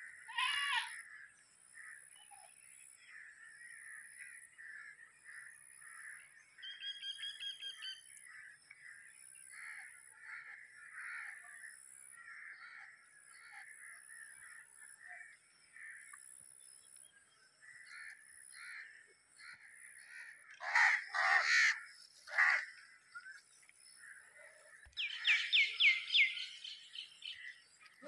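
House crows cawing, with three loud caws about three-quarters of the way through, over steady background bird chatter. A quick run of higher calls follows near the end.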